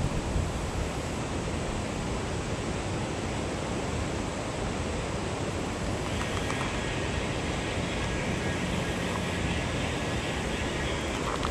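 Steady rushing of flowing river water, an even hiss-like noise with no breaks.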